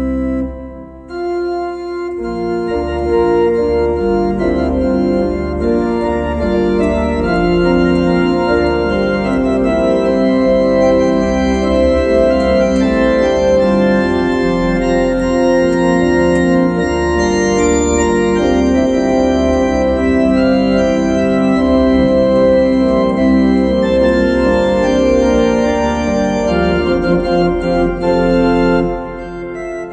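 Organ played in sustained full chords over deep bass notes. A chord releases just after the start, the music comes back in about two seconds in and builds to a steady full sound, then thins out just before the end.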